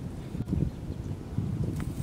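Wind buffeting the microphone in an uneven low rumble, with faint rustling and crackling as fish are worked loose from a cast net on sand.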